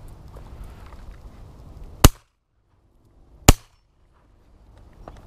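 Two loud shotgun shots from a side-by-side double-barrel shotgun, about a second and a half apart: both barrels fired in turn at ducks.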